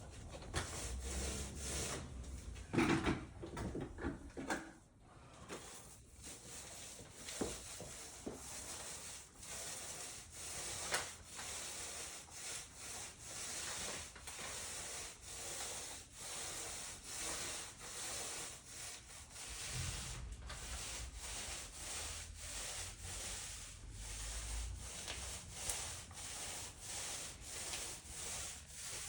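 Back-and-forth rubbing strokes of a tool worked over a concrete slab, a rasping sound pulsing about once or twice a second, with a louder clatter of knocks a few seconds in.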